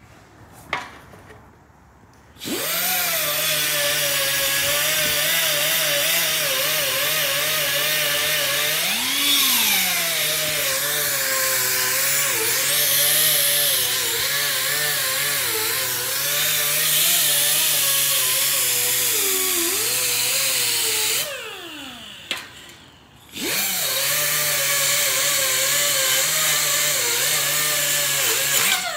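Handheld pneumatic die grinder on an air hose running with a steady whine and hiss, its pitch wavering as it is worked against the metal. It starts about two and a half seconds in, cuts out and winds down around twenty-one seconds, then starts again about two seconds later.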